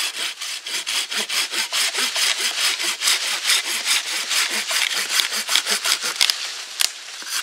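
Fiskars hand saw cutting through a dead birch log in quick, even back-and-forth strokes, several a second, with a short pause near the end.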